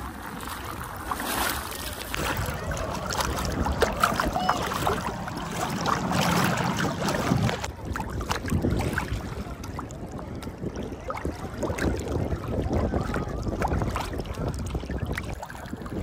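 Seaside ambience: wind buffeting the microphone over a steady wash of sea water, with a few faint distant voices.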